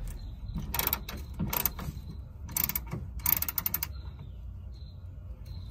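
Hand ratchet with a 15 mm socket loosening a gas-tank strap bolt: several short bursts of rapid pawl clicking on the back-swings as the bolt unscrews, quieter near the end.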